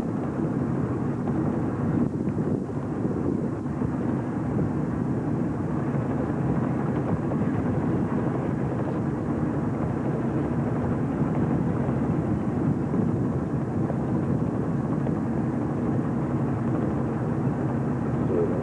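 Boat engine running steadily while underway, a constant low drone mixed with water and wind rush.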